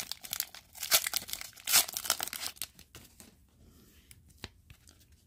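A hockey card pack's wrapper being torn open and crinkled: a run of crackly tears over the first three seconds, then quieter handling with a single sharp click.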